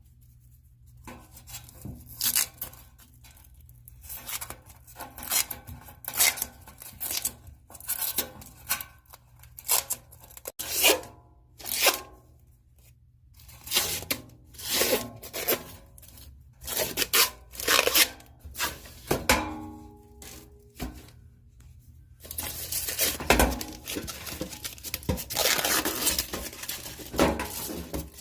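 Thin plastic protective film being peeled off a stainless steel toolbox in a series of short, irregular ripping pulls, turning into a longer, more continuous peel about 22 seconds in.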